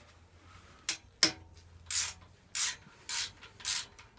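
Two sharp clicks, then rasping strokes at about two a second from a ratchet wrench being swung back and forth to undo Allen bolts on a motorcycle exhaust.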